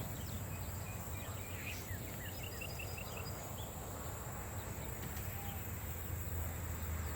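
Songbirds chirping in short scattered calls, with one quick run of about six evenly spaced chirps, over a steady high insect drone and a low steady rumble of wind.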